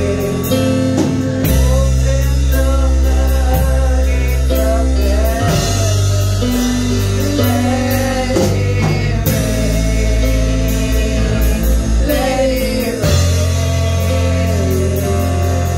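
Live worship music: two women singing lead into microphones over a band of keyboard, electric guitars and drums, with sustained bass notes under the melody.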